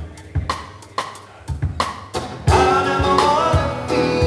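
Live acoustic guitar and drum kit playing a steady beat, then a man's singing voice comes in about two and a half seconds in and the music grows louder.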